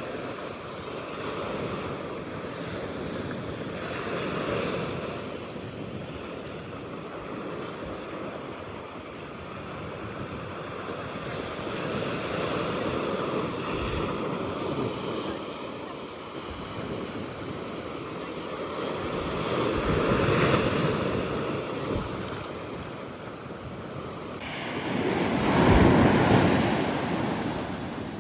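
Pacific Ocean surf, waves breaking and washing in with a surge every several seconds. The biggest wave comes near the end.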